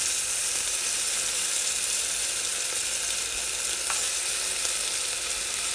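Sliced onions and green chillies sizzling in hot oil and ghee in a pressure cooker. The sizzle jumps louder at the start as ginger-garlic paste goes into the hot oil, then stays a steady hiss.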